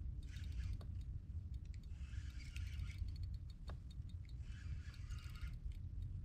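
Spinning reel being cranked in three short spells, each a fine clicking whir, over a steady low rumble.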